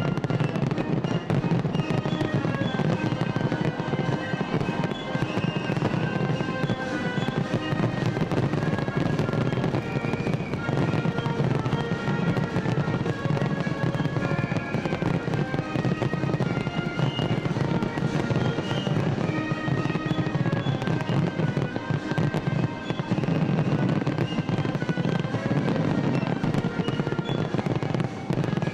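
Aerial fireworks at the climax of a show: a dense, unbroken barrage of shell bursts and crackling, with music playing under it.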